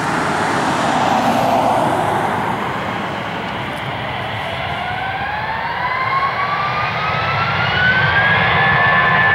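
Airbus A320 jet engines spooling up for takeoff: a steady jet rumble, with a whine that rises in pitch from about five seconds in and levels off near the end as the sound grows louder.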